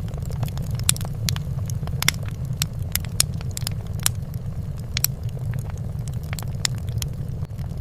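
Fireplace fire crackling: irregular sharp pops and snaps, a few a second, over a steady low rumble.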